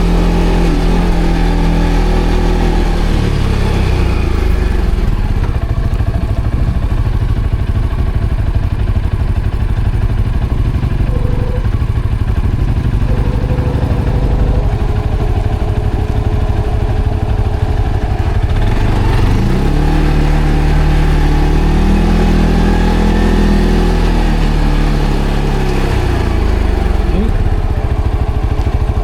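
ATV engine running loud under changing throttle, its note dropping about three seconds in and rising again about two-thirds of the way through.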